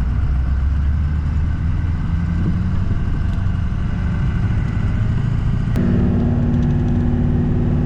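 A vehicle engine running steadily. About six seconds in there is a click, and the engine note steps up to a higher pitch.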